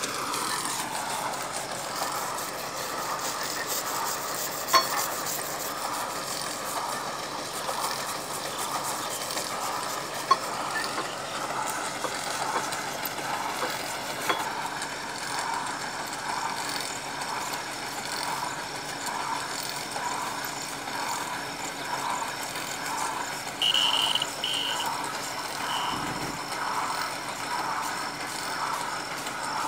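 A borewell drilling rig's engine running steadily, with a few sharp metallic clinks from drill pipe being handled.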